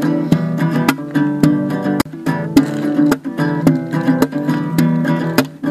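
Music: acoustic guitar strumming chords in a steady rhythm.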